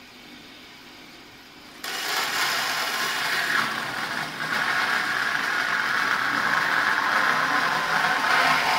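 Maxgrid band saw running, its blade biting into a white floor panel about two seconds in and then cutting steadily through it with a loud, even cutting noise.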